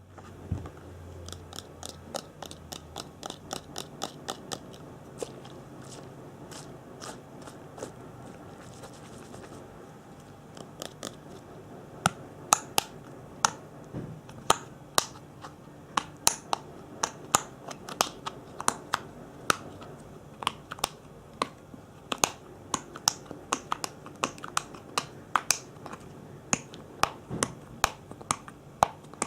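A long series of sharp clicks, snaps or taps made close to the microphone as ASMR triggers, about two to three a second. They are soft at first and become much louder from about twelve seconds in.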